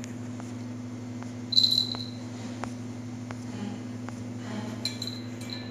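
A poodle eating dry food from a stainless steel bowl: faint crunching clicks and a few metallic clinks against the bowl, the loudest about one and a half seconds in and two smaller ones near the end, over a steady low hum.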